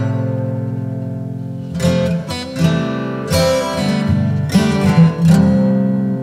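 Background music: an acoustic guitar strumming chords, with a fresh strum every half second to a second.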